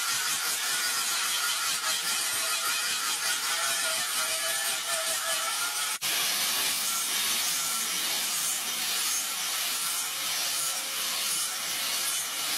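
Angle grinder with a flap disc grinding a knife blade cut from a broken brake disc: a steady hiss of abrasive on metal over the motor's whine, cut off for an instant about halfway.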